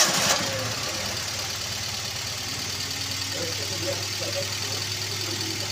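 Toyota Avanza four-cylinder petrol engine just after starting: loud for a moment at the very start, then settling into a steady idle. It shakes and runs as if limping, a misfire that the mechanic puts down to an ignition coil or plug giving weak or no spark.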